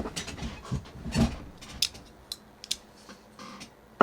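Crinkly plastic bag holding mechanical keyboard switches being handled and opened, followed by a few sharp separate clicks from the loose switches around the middle.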